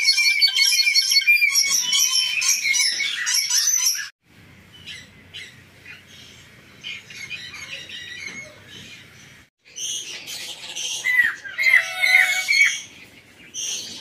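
Caged birds chirping and squawking in a dense, shrill chorus that breaks off abruptly about four seconds in, goes quieter, then returns with louder calls near the end.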